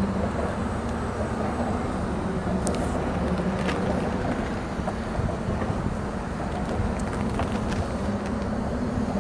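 Traffic crossing the Mackinac Bridge overhead, tyres humming over the open steel grating of the bridge deck: a steady buzzing drone like a hive of angry hornets.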